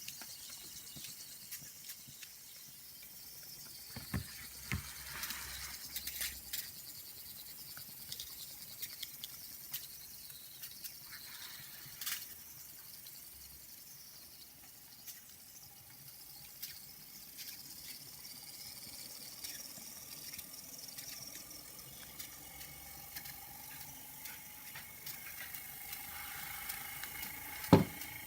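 Saito Hero's ball steam engine running: a steady hiss of steam with scattered sputtering crackles and clicks. A faint whistle-like tone comes in during the second half, and there is one sharp, loud click near the end.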